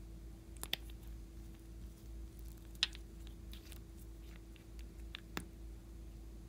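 A few light clicks and taps of small plastic paint bottles and their caps being handled, the sharpest a little under three seconds in, over a faint steady hum.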